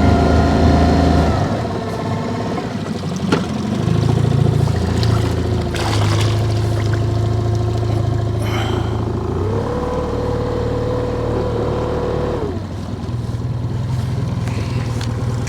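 Boat's outboard motor running steadily. Its pitch steps up about two-thirds of the way through, holds for a few seconds, then drops back as the throttle is adjusted to keep the boat in position against the current.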